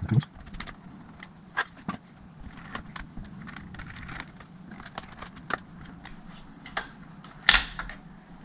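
Scattered small clicks and taps of hand tools and laptop parts being handled during disassembly, with one louder knock near the end.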